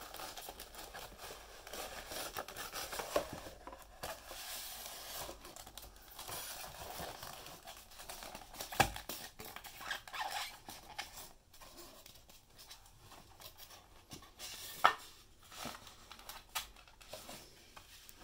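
Unboxing handling noise: cardboard and polystyrene foam packing rubbing and scraping as the box is slid open and the foam inserts are pulled apart. A few sharp clicks stand out, the loudest about 9 and 15 seconds in.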